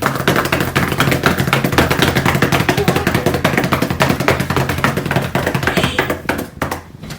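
A fast drumroll, many strokes a second, that stops abruptly about six seconds in, followed by a few loose knocks.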